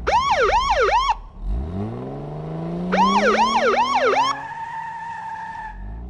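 Police car siren yelping in rapid up-and-down sweeps, twice, with a car engine revving up in between as the stuck car tries to pull out of the sand. The siren gives way to a steady high whine near the end.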